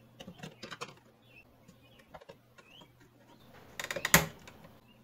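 Small plastic clicks and taps as a screwdriver presses against the white plastic ink-tube holder on an Epson L3116 printer's print-head carriage, with a louder run of sharp clicks about four seconds in.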